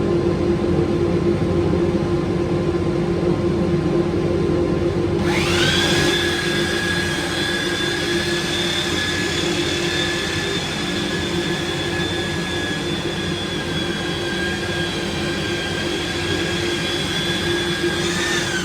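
An electric power-tool motor runs steadily. About five seconds in, a second, higher-pitched motor whine spins up quickly, holds steady, and starts to wind down at the very end.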